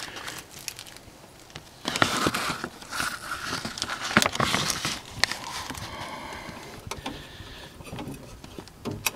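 Irregular rustling and crackling with scattered sharp clicks and knocks: someone moving about a car's open door, handling the camera, with dry leaves crackling underfoot.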